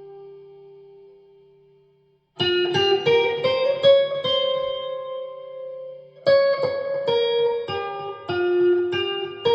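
Electric guitar played through an amplifier. A held note rings and dies away over the first two seconds, then after a short gap come two runs of single picked notes, the second starting about six seconds in.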